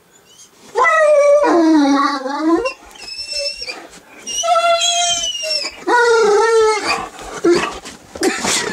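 Great Dane puppy howling: four drawn-out howls that waver in pitch, the first sliding downward, then shorter, noisier sounds near the end.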